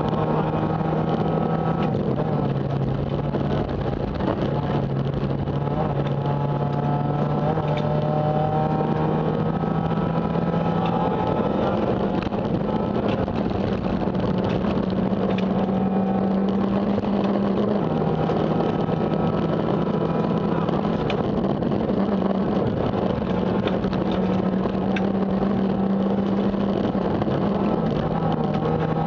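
Renault Mégane kit car's engine, heard from inside the cabin, pulling hard at high revs on a gravel stage. Its pitch steps up and down between two levels several times with gear changes, over a steady rush of tyres on gravel and scattered sharp clicks of stones striking the car.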